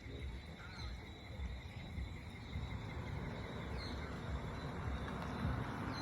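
Insects trilling steadily outdoors over a low rumble, with a hiss that grows louder over the last couple of seconds.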